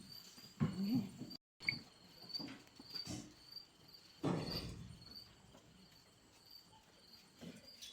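Beetal goats bleating in a few short calls, with a faint steady insect chirring behind.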